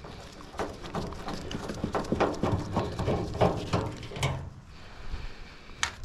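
A screwdriver backing a Phillips screw out of a microwave's sheet-metal housing: a run of small, irregular metal clicks and taps, with a sharper click near the end.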